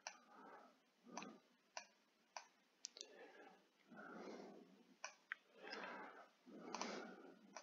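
Near silence with a few faint, scattered computer mouse clicks and soft breathing between them.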